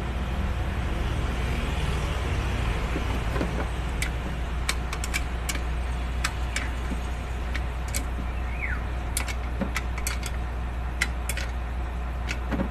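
A vehicle engine running steadily as a low hum. From about four seconds in it is joined by many short, sharp metallic clicks and clinks of a fuel filter assembly being handled and turned by hand.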